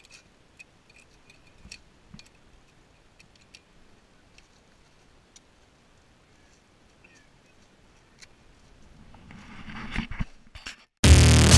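Faint scattered small metallic clicks and ticks, then a hiss that builds for a couple of seconds before loud music cuts in near the end.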